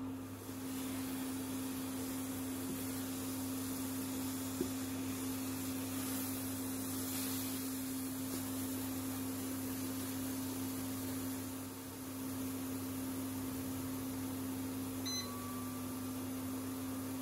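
Grated apple and sugar simmering into jam in a nonstick pan: a soft, even sizzling hiss over a constant low hum, which drops slightly in pitch about fifteen seconds in.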